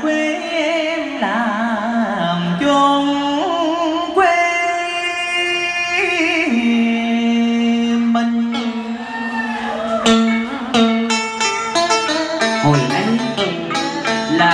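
A man singing a Vietnamese song into a handheld microphone, amplified over instrumental accompaniment, with long held notes and vibrato.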